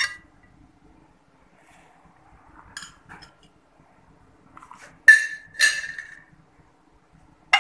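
Metal cake server clinking against ceramic plates while a slice of cake is cut and served: a few light taps, then two loud ringing clinks about half a second apart, and a last sharp clink near the end.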